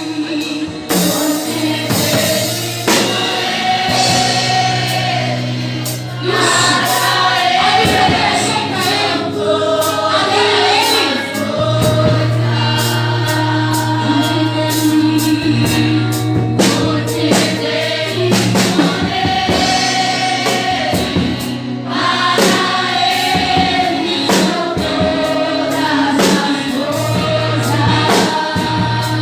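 Gospel music: a choir singing over a band, with a sustained bass line and regular drum hits.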